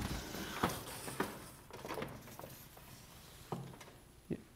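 A few soft, scattered knocks and some rustling in a quiet room, with a faint steady high whine behind them.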